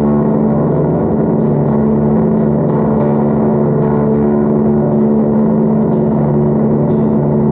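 Electric guitar played through fuzz and effects pedals, holding one loud, sustained drone with no new picked notes.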